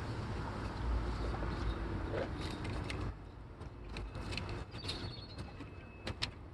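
Scattered sharp mechanical clicks and creaks of hands-on work under the hood, over a low rumble that drops away suddenly about three seconds in.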